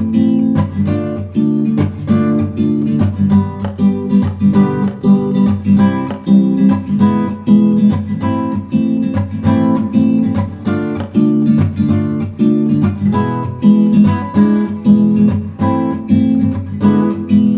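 Acoustic guitar strummed in a steady rhythm, an instrumental introduction to a song before the voice comes in.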